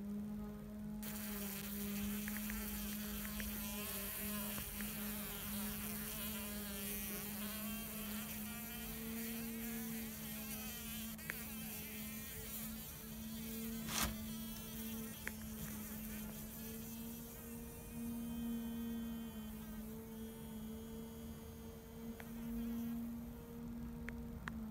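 Horse fly caught in a spider's web, buzzing its wings in a steady low drone that wavers slightly in pitch as it struggles against the attacking spider. One sharp click a little past halfway.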